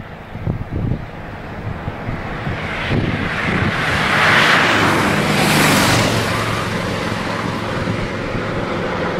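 Harley-Davidson V-twin cruiser motorcycle passing by on a highway: the engine and wind noise swell to a peak about four to six seconds in, then ease off as it rides away.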